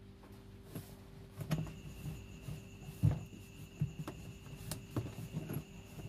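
Cloth wiping and rubbing over the plastic bottom of a washing machine's wash tub, with the pulsator removed, giving irregular soft scuffs and knocks. The loudest knock comes about three seconds in.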